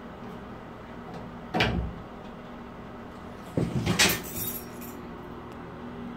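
Hand tools handled at a bathtub's edge: a single knock about a second and a half in, then a louder metallic clatter about four seconds in, as pliers are set down on the tub rim.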